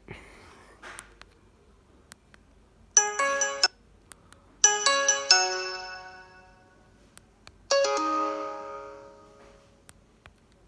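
Mobiwire Sakari mobile phone playing a ringtone through its small speaker: three short bursts of chiming notes, about three, five and eight seconds in. The first stops abruptly after under a second, and the other two ring out and fade.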